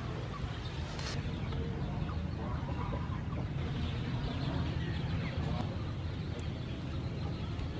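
Chickens clucking against a steady low background rumble.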